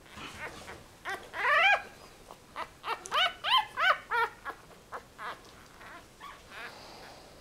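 One-week-old Yorkshire Terrier–Jack Russell cross puppies squealing and whimpering. A long rising squeal comes just over a second in, then a quick run of about five short, high squeals around three to four seconds in, with fainter squeaks between.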